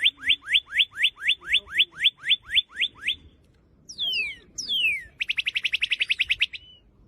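Car-alarm siren tones stepping through their patterns: a run of quick falling chirps, about four a second, which stops a little past three seconds in; then, after a short gap, two long falling sweeps, followed by a fast warble of rapid pulses.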